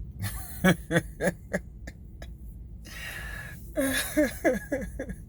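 A person laughing in two short bouts of quick, pitched bursts that fall in pitch, with a breath between the bouts.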